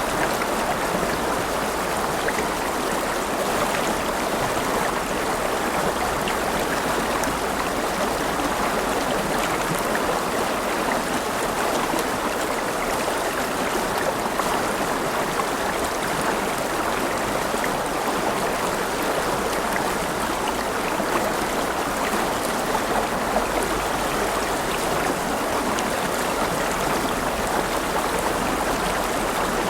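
River water rushing and burbling steadily over stones, with small splashes scattered through it.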